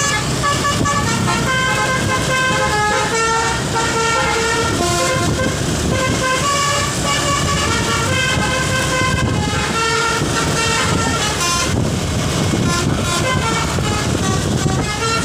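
Bus 'telolet basuri' multi-tone horn playing a tune, stepping through a quick run of short held notes, with a low rumble underneath.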